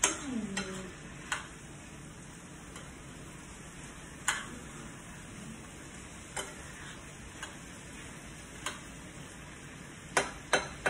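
A spoon stirs and knocks against a skillet of chicken and mixed vegetables over a steady light sizzle. Sharp knocks come every second or two, with a quick run of them near the end.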